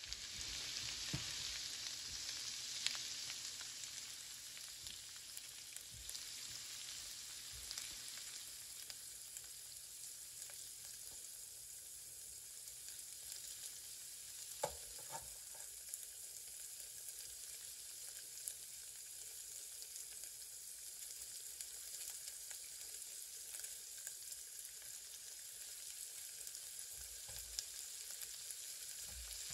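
Food frying in a hot pan, a steady sizzle that is loudest in the first few seconds and then settles, with a few sharp clicks of a utensil against the pan.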